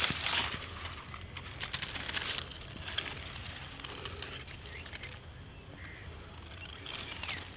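Sugarcane leaves rustling and brushing against each other as someone moves through the crop, loudest near the start and again about two seconds in, with a few faint bird chirps in the background.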